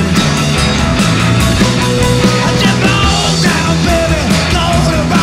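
Rock band playing live at full volume, with a steady drumbeat over bass and sliding guitar or vocal lines.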